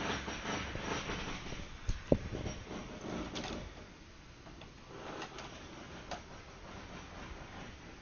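Jackhammering on building work next door, a dense steady rattle, carries on for the first two seconds or so. Two sharp knocks follow about two seconds in. After that the noise drops to a much quieter, muffled background with a few light clicks.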